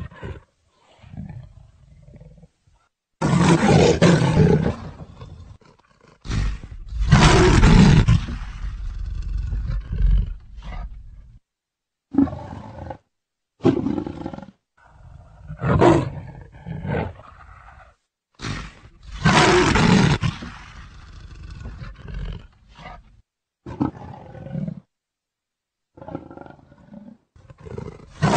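Leopard calling: a series of loud roaring calls of varying length, some under a second and others lasting several seconds, separated by short silences, several starting and stopping abruptly.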